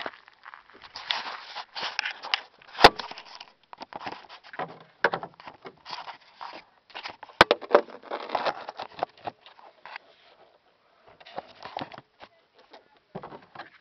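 Irregular footsteps and rustling handling noise, with two sharp clicks, about 3 and 7.5 seconds in, and thinning out near the end.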